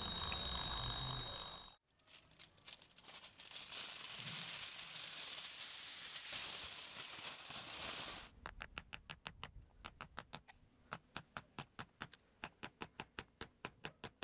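A cordless drill whines steadily with a polishing bob in its chuck, then cuts off about two seconds in. Aluminium foil crinkles for several seconds. After that a hammer taps a brass spoon blank bedded on crumpled foil, quick at first, then in steady taps about three a second.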